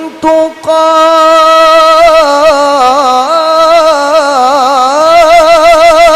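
A Quran reciter's high voice holding one long, ornamented vowel in melodic tilawah, wavering in quick trills and lifting to a higher pitch about five seconds in.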